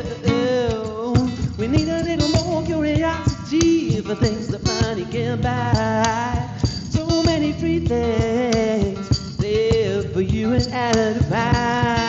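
Music: a song with a wavering melodic lead over backing instruments, in a passage without lyrics.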